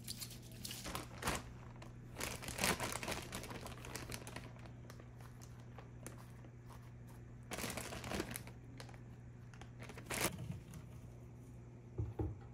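A plastic zip-top bag crinkling in several bursts as shredded carrot is taken out of it and the salad is handled. Near the end come two soft knocks of cherry tomatoes set down on a wooden cutting board, over a steady low hum.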